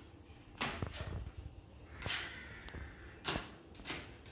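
Several short knocks and rustles from hands handling food and utensils at a table, about four of them, spaced irregularly.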